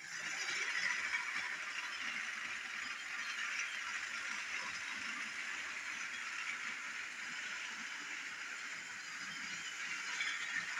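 Battery-powered toy train engine running around plastic track, pulling a short rake of wagons. Its small motor whirs steadily and the wheels rattle along the track.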